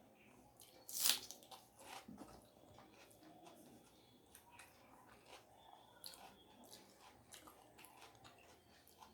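A person eating close to the microphone: one loud crisp bite about a second in, followed by steady chewing with many small crunches and clicks.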